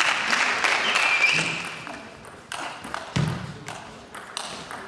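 Table tennis ball clicking off bats and table during a rally, in irregular sharp clicks. For the first two seconds a loud rush of background noise sits under the clicks, then fades.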